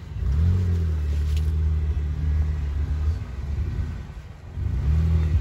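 Jeep Wrangler engine revving under load as it crawls over rocks. The revs rise about half a second in, hold, ease off briefly, then rise again near the end.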